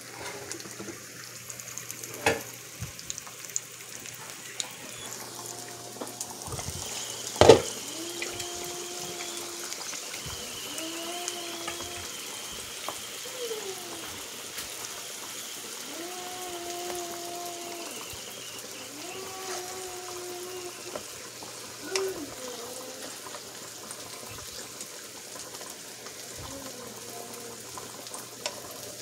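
Sweet pork longanisa sausages sizzling steadily in a nonstick frying pan, in their sugary glaze. Sharp clanks of pan and lid come a few times, the loudest about seven seconds in.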